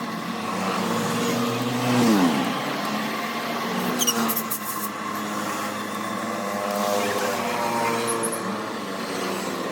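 An engine running, its pitch swinging up and down, with a sharp drop in revs about two seconds in.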